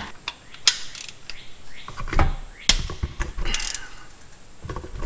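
Hand ratchet wrench clicking in short, irregular bursts while a 14 mm idler-pulley bolt is loosened on a Honda 3.5L V6 timing-belt front.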